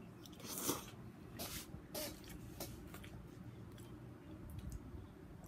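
Eating spaghetti close to the microphone: a slurp of noodles about half a second in, the loudest sound, then scattered wet chewing smacks.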